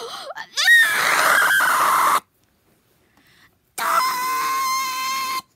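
A person screaming twice in a shrill, loud voice, each scream about a second and a half long: the first slides down in pitch, the second is held on one steady pitch.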